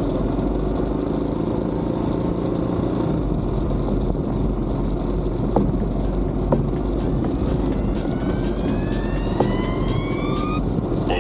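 Motorcycle running steadily on the move, its engine rumble mixed with wind and road noise. A rising whine comes in near the end and cuts off.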